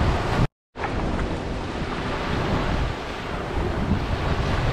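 Small waves washing up a sandy beach, with wind rumbling on the microphone. About half a second in, the sound cuts out completely for a quarter of a second, then comes straight back.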